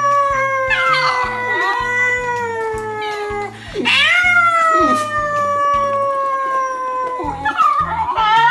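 Howling played back through a phone's speaker, from a recorded video of the basenji singing with its owner: two long, slowly falling howls, the second starting with a quick upward swoop about halfway through. Background music with a bass line runs underneath.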